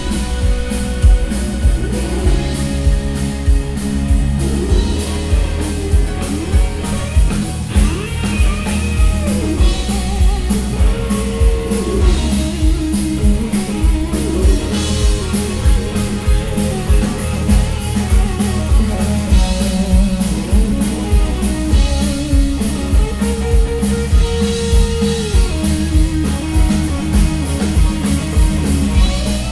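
Live rock band playing loud through a PA: electric guitars over bass and a drum kit keeping a steady beat.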